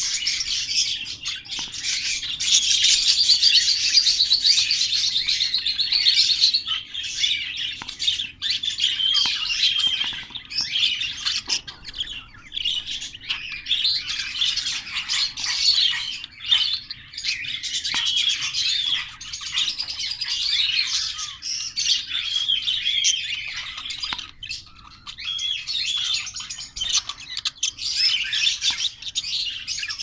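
Budgerigars chattering and warbling without pause, a dense run of quick chirps and warbles: the chatter of a courting pair.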